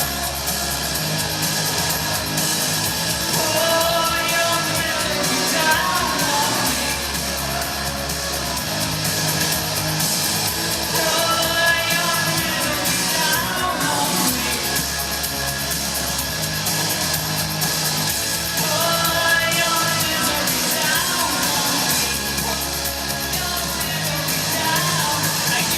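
Live rock band playing loud, with a woman singing the lead vocal in phrases over steady bass, guitars and drums.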